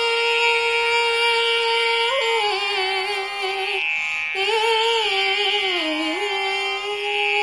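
Girl singing Carnatic vocal unaccompanied, drawing out a long vowel with slow pitch slides (gamakas) and a short break about four seconds in.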